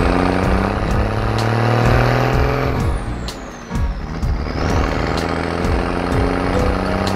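A cartoon truck engine sound effect running over background music, with a brief dip in loudness about three and a half seconds in.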